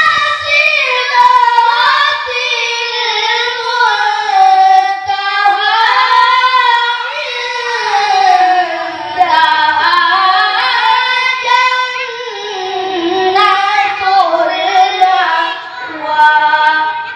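A boy's voice reciting the Qur'an in the melodic tilawah style, with long held, ornamented notes that glide up and down in pitch.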